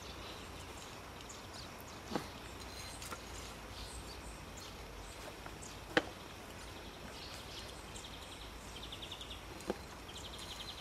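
Three sharp knocks, about two seconds in, six seconds in (the loudest) and near the end, as feet and gear strike the hanging wooden steps of a treetop rope course. Short, high, rapid trills from a small bird start in the second half.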